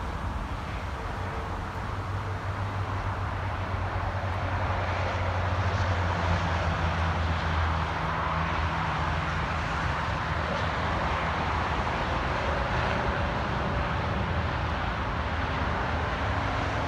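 Jet engine noise from a Boeing C-17A Globemaster III's four turbofans after landing: a broad, steady rumble that swells about five seconds in and then holds.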